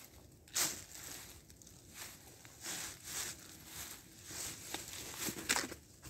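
Footsteps and rustling in dry fallen leaves, faint, with irregular light crunches about every second.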